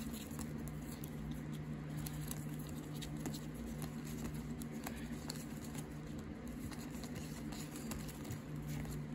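Trading cards being thumbed through by hand: soft scattered clicks and slides of card stock against card, over a steady low hum.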